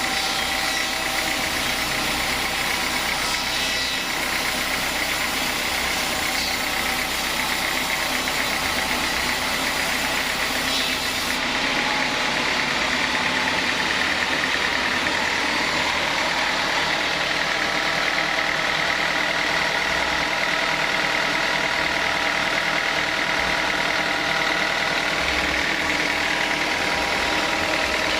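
Sawmill saw running steadily as it cuts teak, a dense mechanical drone with a constant whine through it. The highest hiss drops out suddenly about eleven seconds in.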